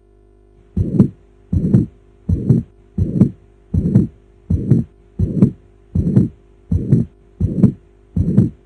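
Recorded human heart sounds: a regular two-part 'poum-ta' heartbeat (first and second heart sounds), eleven beats at about 80 a minute, over a faint steady hum.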